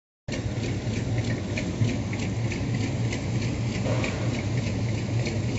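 Rat rod pickup's engine idling steadily, with a sharp tick repeating about three times a second.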